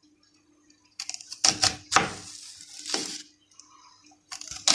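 Kitchen knife chopping an onion on a cutting board: a few sharp, uneven chops starting about a second in, a pause, then two more near the end.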